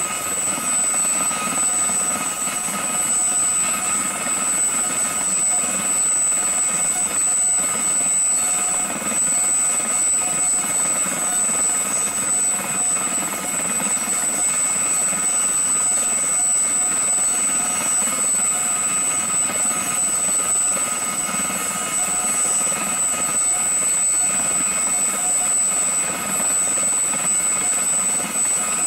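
Aérospatiale Gazelle SA341F2 helicopter's Turbomeca Astazou IIIC2 turbine running steadily on the ground with its rotor turning: a constant high-pitched turbine whine over the rotor noise.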